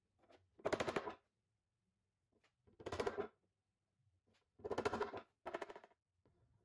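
A glue brush scrubbing glue onto wooden loose tenons. It comes as four short bursts of rapid scratching, each about half a second long.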